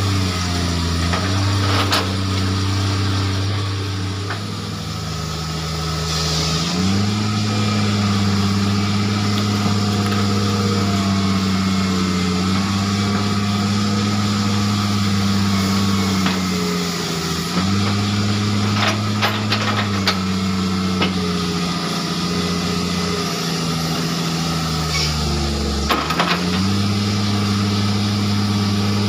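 Excavator diesel engine labouring as it lifts logs with a grapple. The engine speed rises and falls several times as the hydraulics take the load, and a few sharp knocks come through. The worn machine is struggling to lift the logs.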